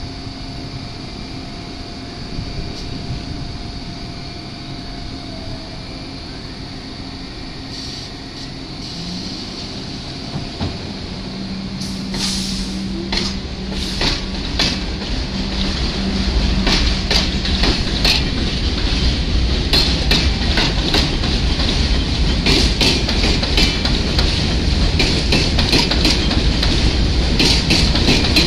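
R62 subway train on an elevated line pulling away and picking up speed. It starts as a steady low hum, then grows louder, with wheels clattering over the rail joints from about halfway through.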